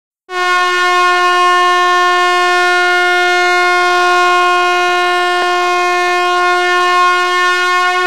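Ice-hockey goal horn, the Boston Bruins' arena air horn, sounding one long steady blast at a single pitch to signal a goal.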